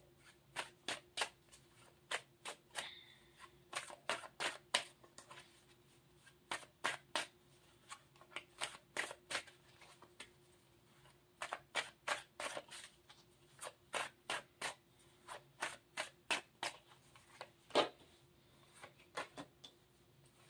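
A tarot deck being shuffled by hand: a long run of short, crisp card clicks, several a second in uneven clusters, with one louder snap near the end.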